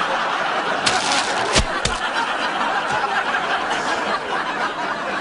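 Studio audience laughing after a punchline, a dense spread of many voices with a few sharp clicks about a second in.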